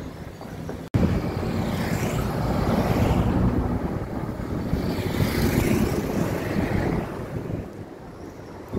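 Wind rushing over the microphone of a camera carried on a moving bicycle, with a low road and traffic rumble. It jumps sharply louder at an edit cut about a second in, then eases off somewhat near the end.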